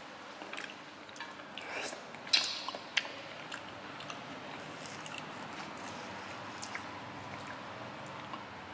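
A person eating hot noodles: chewing and biting, with a few sharp clicks in the first three seconds, the loudest about two and a half seconds in.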